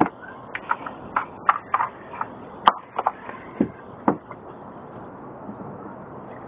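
Scattered sharp clicks and knocks of plastic parts being handled as a funnel is set into the engine's oil filler, about a dozen over the first four seconds with one sharp crack near the middle. Steady wind noise on the microphone throughout.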